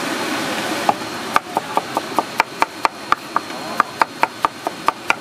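A cleaver chopping a guava on a wooden cutting board: a quick run of sharp knocks, about four a second, starting about a second in.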